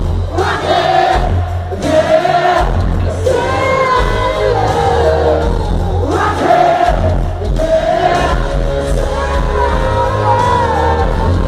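Live band concert heard from the audience through a loud arena PA: a lead singer over amplified band music with heavy bass.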